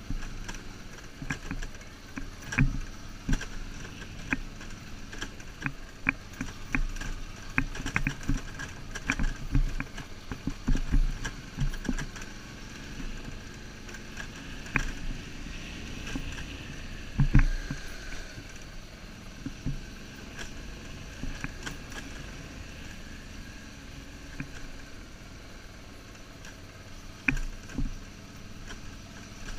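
BMW R1150GS motorcycle riding slowly over a rocky dirt track: a low engine rumble and wind, crossed by frequent sharp knocks and rattles as the bike jolts over loose stones, the heaviest about seventeen seconds in.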